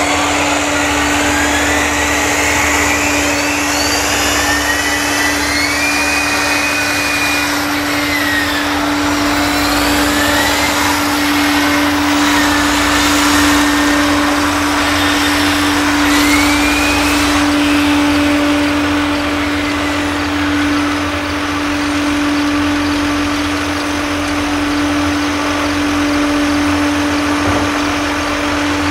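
Tractors running at work on a maize silage clamp: a steady, loud engine drone, with high whines that rise and fall in pitch as a tractor drives back and forth over the pile to compact the chopped maize.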